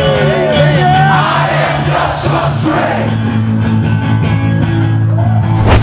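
Live rock band playing: electric guitar and drums with a singer's voice over sustained bass notes.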